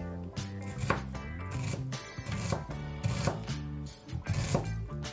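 Chef's knife slicing through an onion and knocking on a bamboo cutting board, a sharp cut about once or twice a second, over background music.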